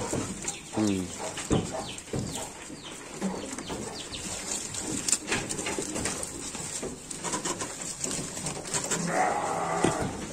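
Garut sheep munching dried jackfruit leaves held out by hand, the dry leaves crackling and rustling as they are tugged and chewed. A brief low animal call comes about half a second in.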